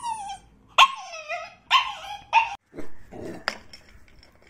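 Puppy whining and yipping: four short high-pitched cries in quick succession, each falling in pitch, as she begs for the food being eaten. A sharp click follows about three and a half seconds in.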